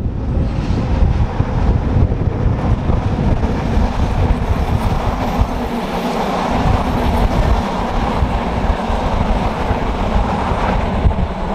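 Electric locomotive-hauled passenger train of coaches passing at speed, a steady rush and rumble of wheels on the rails.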